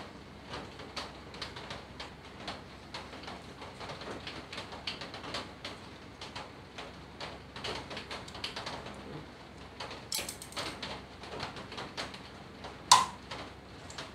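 Plastic housing of a Xiaomi humidifier being handled and fitted together by hand: a run of small plastic clicks and taps, a brief scrape about ten seconds in, and a sharper, louder click near the end.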